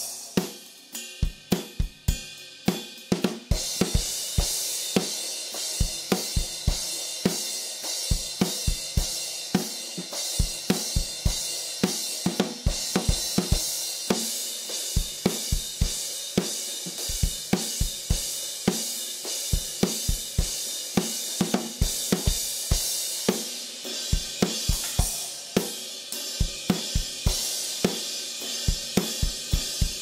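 Drum kit played in a steady groove on Kingdo Artist Bright cast B20 bronze cymbals. Kick and snare strokes run throughout, with sparser playing at first. From about three and a half seconds in, a continuous cymbal wash rings over the beat.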